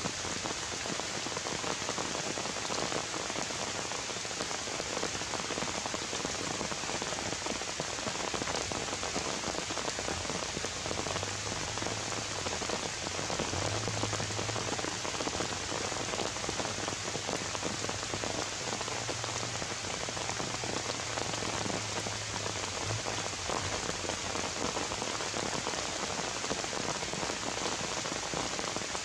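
Rain falling steadily on leaves and ground, an even hiss with no let-up.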